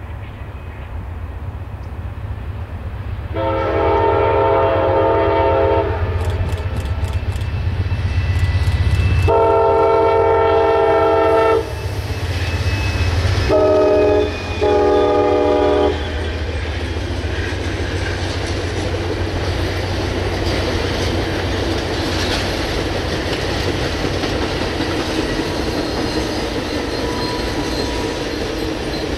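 Diesel passenger locomotive's multi-chime air horn sounding the grade-crossing signal: two long blasts, a short one and a longer one, over the low rumble of the approaching engine. Then the steady rolling noise of the passenger cars' wheels on the rails as the train passes.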